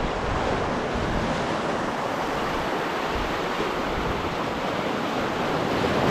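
Small sea waves breaking and washing over low rocks at the shoreline: a steady rush of surf and foaming water.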